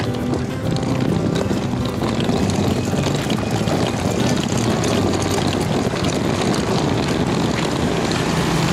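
A steady engine drone mixed with street noise.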